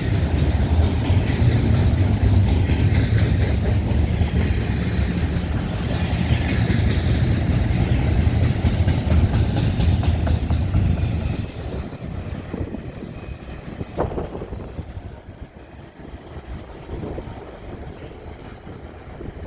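BNSF intermodal freight train's cars rolling past: a heavy rumble with the rattle of wheels on rail. The sound drops off sharply about eleven seconds in, leaving a fainter rumble with a single sharp clack a couple of seconds later.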